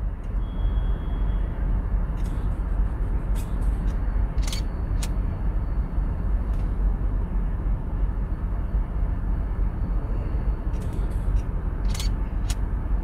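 Steady low rumble of a car running, heard from inside the cabin, with several sharp camera shutter clicks spread through it, some coming in quick pairs.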